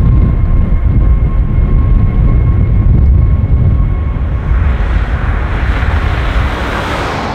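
Airbus A380's four Rolls-Royce Trent 970 jet engines at takeoff thrust during the takeoff roll. A deep, steady rumble carries a faint steady whine, and a hissing rush of engine noise swells over the last few seconds.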